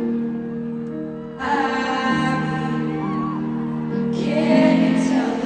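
Live piano ballad: a woman singing to her own piano accompaniment, with held piano chords under the vocal line. The sound dips just after a second in, then a new chord comes in about one and a half seconds in.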